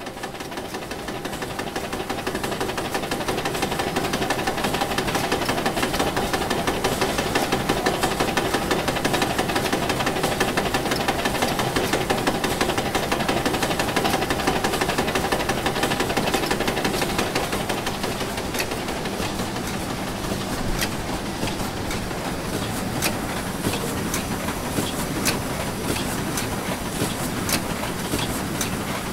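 Running machinery, a dense steady clatter with rapid ticks and rattles, fading in over the first couple of seconds; sharper clicks stand out from about two-thirds of the way through.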